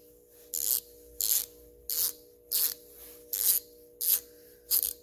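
ICON quarter-inch drive, 90-tooth low-profile ratchet being swung back and forth, giving a short burst of fine, rapid pawl clicking on each stroke. About seven even strokes, roughly one every three-quarters of a second.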